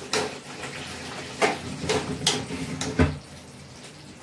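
Steel ladle scooping curry from a steel kadai and clinking against the pan and a steel serving bowl, about six sharp clinks, with thick gravy pouring into the bowl between them.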